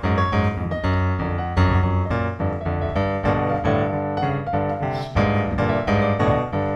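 Background piano music, a steady flow of notes with a bass line.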